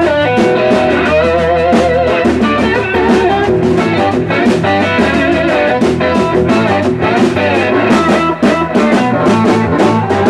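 Blues rock on a Gibson SG electric guitar played with a slide, the notes gliding and wavering in pitch over a steady bass line and regular beats.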